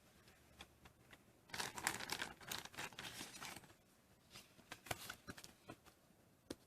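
Handling noise: a couple of seconds of dense rustling and crinkling starting about a second and a half in, then a scattered run of short, sharp clicks.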